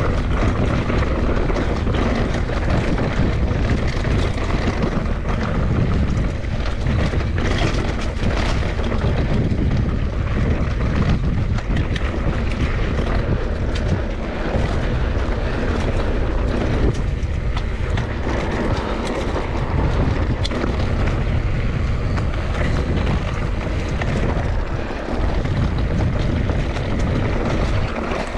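Steady wind rush on the microphone of a mountain bike being ridden along a trail, with scattered clicks and knocks from the bike over rough ground.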